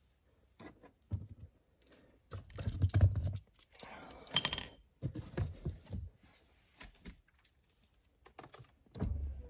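Small loose parts, bolts and plastic trim, clinking and rattling as they are handled, with scattered sharp clicks. There are two louder rattling stretches, about three and four and a half seconds in, and a steady low hum starts just before the end.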